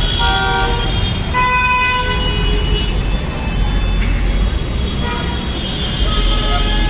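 City traffic with vehicle horns honking several times in turn, over a steady low rumble of engines and road noise.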